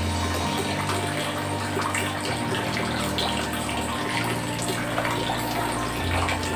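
Aquarium water running and splashing steadily, with a low steady pump hum underneath.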